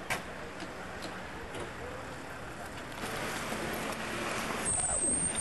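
Street traffic noise: cars passing, one swelling louder about three seconds in, with faint voices of passers-by. A sharp click comes right at the start, and a thin high whine comes in near the end.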